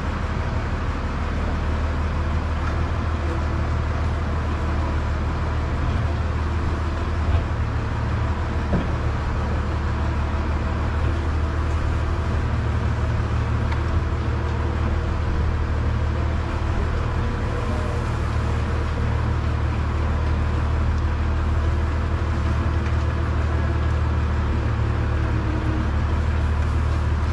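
Steady low mechanical drone, like a running engine or farm machinery, with a couple of brief knocks about seven and nine seconds in.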